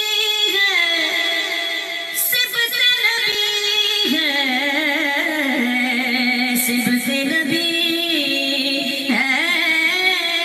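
A naat sung by a single voice in long, drawn-out held notes with a wavering vibrato; the melody drops lower about four seconds in and climbs again near the end.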